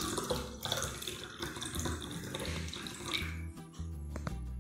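Water poured from a glass jug into a drinking glass, a steady splashing trickle that stops about three seconds in.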